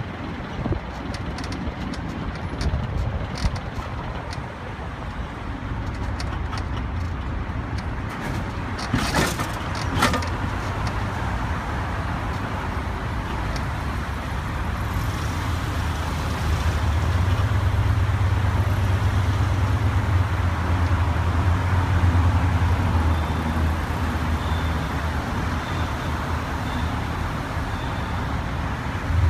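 A tow truck drives along with a car on its wheel-lift, its engine and road noise making a steady low rumble. Two sharp knocks come about nine and ten seconds in, and the rumble grows louder a little past halfway.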